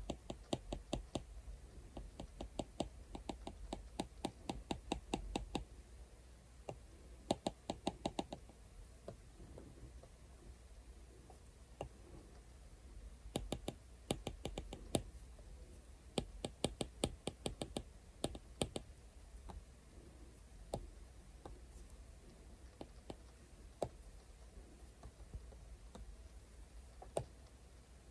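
Stylus tip tapping and dabbing on an iPad's glass screen: runs of quick clicks, several a second, broken by short pauses and thinning to scattered taps in the last third.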